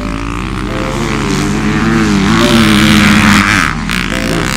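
Kawasaki KX250 motocross bike's engine revving on a dirt track, its pitch climbing and dropping several times as the rider works the throttle, loudest about three seconds in.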